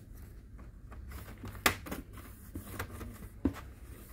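Plastic snap clips of an HP 255 G3 laptop's top case popping loose as a plastic pry tool is worked along the seam: a few sharp clicks, the loudest about a second and a half in, over light scraping and handling.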